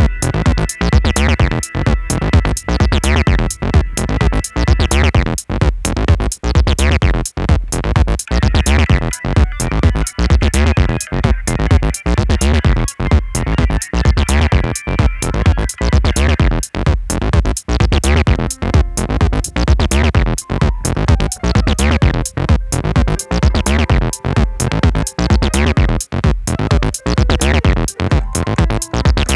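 Electronic instrumental music with a steady drum-machine beat and synth bass, with keyboard piano, organ and bell parts played over it.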